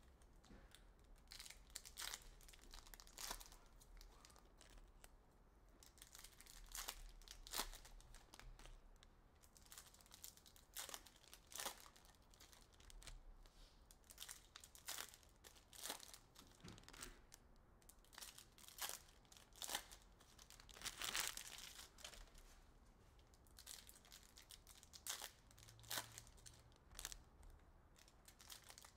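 Foil wrappers of Upper Deck hockey card packs being torn open and crinkled by hand: faint, irregular crackles and rustles, with a thicker burst of crinkling about 21 seconds in.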